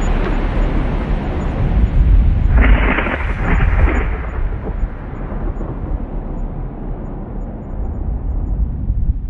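Thunder rumbling low, with a louder, sharper peal breaking in twice around three seconds in, then a long deep rumble slowly dying away.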